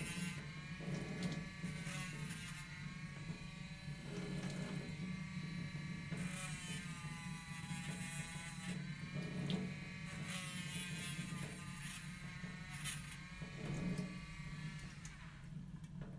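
A small electric motor runs with a steady hum. Its whine dips in pitch and recovers several times, about every two to three seconds.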